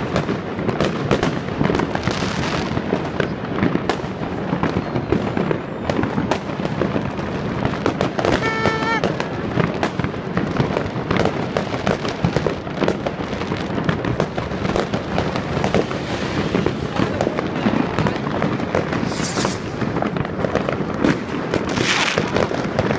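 Many fireworks and firecrackers going off at once, a dense, unbroken crackle of bangs and pops with no let-up.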